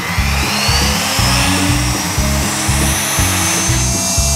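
DeWalt router motor switched on and spinning up, its whine rising steadily in pitch, then running at speed. Background music with a steady bass beat plays throughout.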